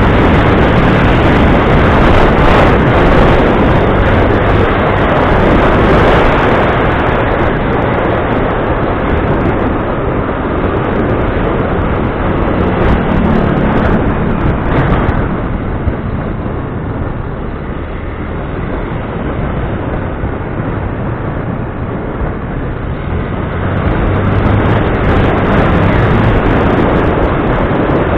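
A vehicle running: steady engine hum under a loud rushing noise, easing off somewhat in the middle and building again near the end.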